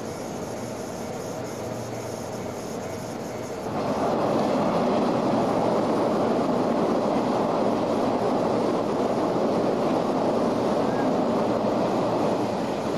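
A limited express train passing through the station without stopping, overtaking a stopped local train. Its wheel and rail noise comes in suddenly about four seconds in and stays loud as the cars go by, easing near the end. Before it arrives there is a steady electric hum from the standing 113-series train.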